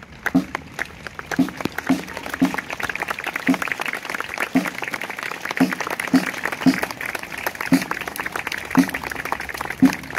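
Audience applauding as a marching band passes, with a dense patter of clapping and louder single claps close by, about one or two a second.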